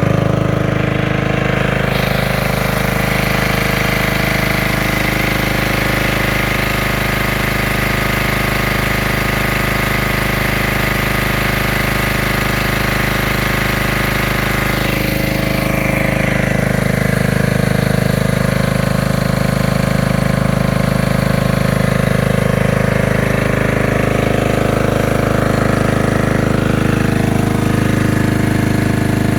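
Generator engine running steadily after being started for the first time in months.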